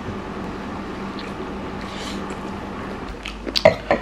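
Steady low room hum, with a few sharp crunches and clicks near the end from eating fried chicken.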